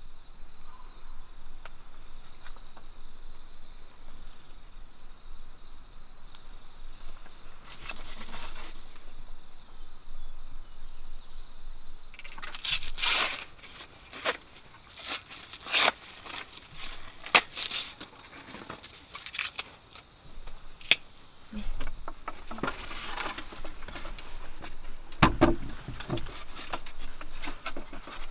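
Green husks being ripped off an ear of fresh corn by hand: a run of sharp, irregular tearing strokes starting about halfway through. Before that there is only steady outdoor background with a faint high insect-like tone.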